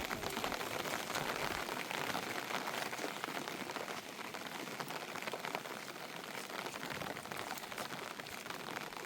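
Steady rain falling, an even hiss of many small drop hits, a little softer after about four seconds.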